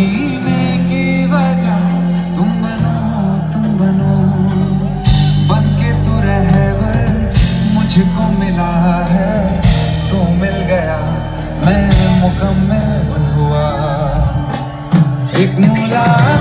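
Live band music with a male vocalist singing over acoustic guitar, a held bass line and drums with occasional cymbal crashes, heard loud through the concert PA from among the audience.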